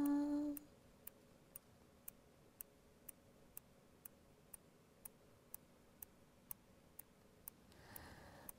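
A woman's sung note ends just over half a second in, then a faint, steady ticking follows, about two ticks a second.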